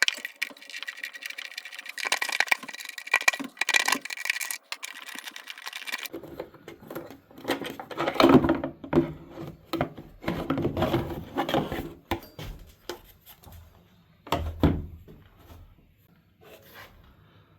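Hand tools and the plastic air box cover being worked on a generator engine: a busy run of clicks, rattles and scrapes that thins out to a few faint taps near the end.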